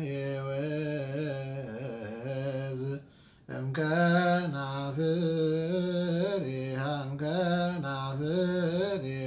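A man chanting an Ethiopian Orthodox abun hymn in Ge'ez, solo and unaccompanied, holding long notes that slide and waver between pitches. He breaks off briefly for breath about three seconds in.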